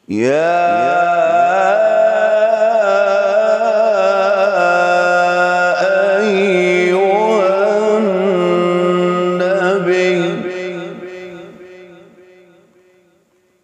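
A man reciting the Quran in melodic tilawat style, one long, ornamented phrase that starts abruptly and tapers away over the last few seconds.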